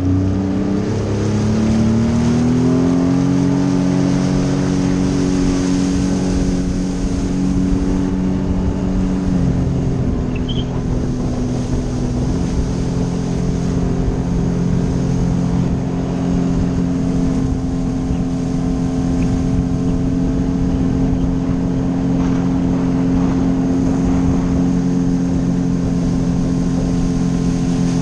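Sea-Doo personal watercraft engine pulling away, its pitch rising over the first few seconds, then holding a steady cruising speed with a slight easing off about ten seconds in. A constant rush of water and wind runs under the engine.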